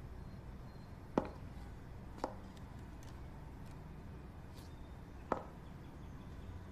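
Three short, sharp knocks over a low steady hum: one about a second in, another a second later, and a third about five seconds in.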